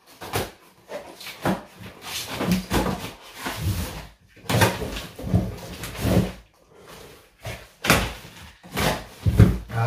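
Cardboard shipping box being cut open with a small knife and its flaps pulled apart and handled: irregular scraping and rustling of cardboard with several sharp knocks.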